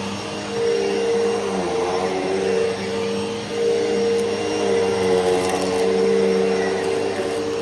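Hoover Elite Rewind upright vacuum cleaner running, its motor a steady hum over a rushing air sound. The hum dips in pitch briefly about a second and a half in, and the level rises and falls as the vacuum is worked over the floor.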